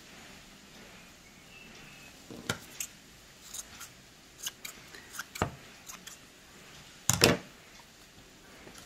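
Scissors snipping through yarn strands as a pom-pom is trimmed: a run of about ten short, sharp snips at an uneven pace, starting about two seconds in, with a louder clack a little after seven seconds.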